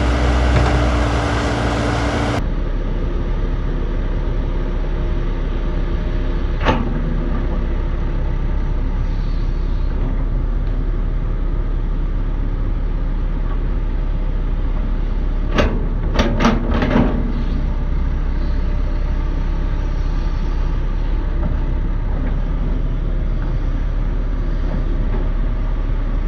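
JCB JS205 excavator's diesel engine running steadily while digging, with a sharp clank about seven seconds in and a short run of clanks around sixteen to seventeen seconds in.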